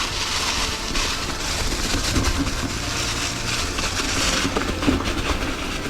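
Ibis Ripmo mountain bike descending rocky, leaf-covered singletrack: a continuous rush of tyres rolling over leaves and rock, with scattered clicks and knocks from the bike rattling over the rough ground.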